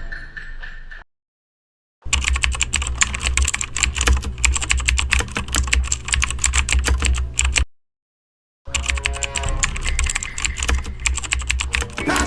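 Rapid, continuous typing on a computer keyboard, a fast clatter of key clicks. It comes in two stretches: it starts about two seconds in, cuts off abruptly for about a second, then resumes.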